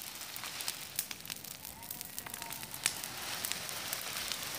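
Pile of dry weeds and leaves burning, crackling with many sharp pops over a steady hiss, along with the rustle of dry leaves being thrown onto it.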